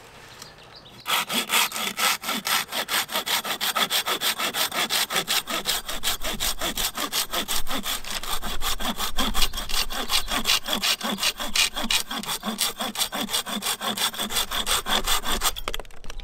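A folding hand saw cutting through a branch with brisk, even back-and-forth strokes. It starts about a second in and stops shortly before the end.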